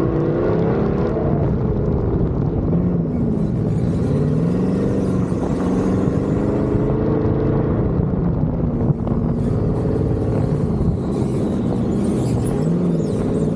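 Sandrail engine running hard, its pitch rising and falling again and again as the throttle is worked over the dunes, with steady wind rush. A single sharp knock about nine seconds in.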